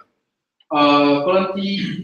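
Dead silence for the first moment, then a man's voice starts on a long, held vowel and goes on speaking.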